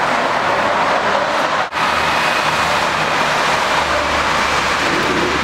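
Steady loud rushing noise of passing vehicles, with a brief dropout just under two seconds in.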